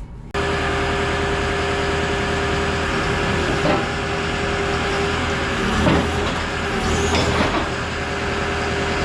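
Heavy vehicle engine running steadily, with a constant whine over the rumble.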